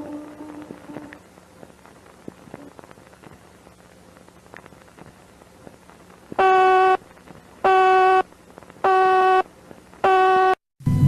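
Emergency alert system alarm: four evenly spaced buzzy electronic beeps, each about half a second long, after several seconds of low hiss. A lower held alert tone fades out about a second in, and a new loud tone cuts in at the very end.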